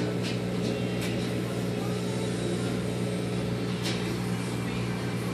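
A steady low hum at an even level, with a few sharp isolated clicks: several in the first second and one a little under four seconds in.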